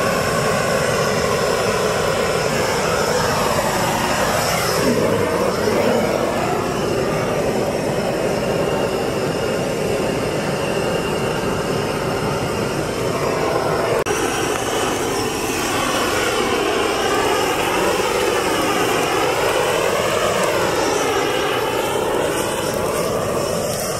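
Hand-held gas burner torch, fed by hose from a gas cylinder, burning steadily as a loud rushing noise, with faint tones wavering in pitch through its second half.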